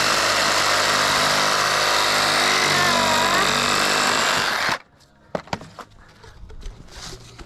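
Handheld power tool running at steady speed, cutting off suddenly near the end, then a few light knocks.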